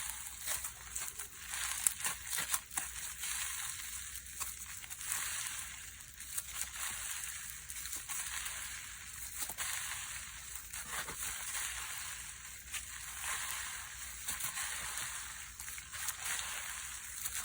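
Slime being worked by hand: a dense, steady crackle of tiny air bubbles popping, with scattered sharper clicks.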